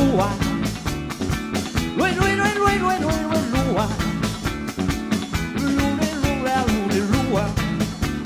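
Live rock band playing an up-tempo number: a quick, steady drum beat under a lead melody that bends in pitch about two seconds in and again near six seconds.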